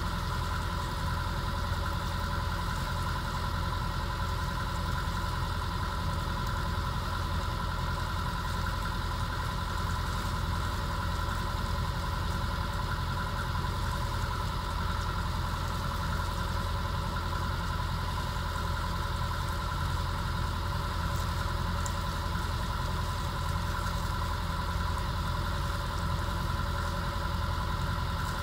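Inboard diesel engine of a hire motor cruiser running steadily under way, heard from inside the wheelhouse: an unchanging low rumble with a steady mid-pitched hum over it.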